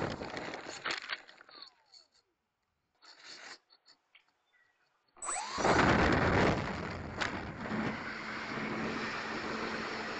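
Twin electric motors and propellers of an E-flite Twin Otter RC plane throttling up for takeoff, heard from a camera on its tail. After some scattered rustles and knocks and a near-quiet stretch, a loud rush of prop wash and wind starts about five seconds in. It peaks during the takeoff roll and settles into steady airflow noise with a faint low hum as the plane climbs out.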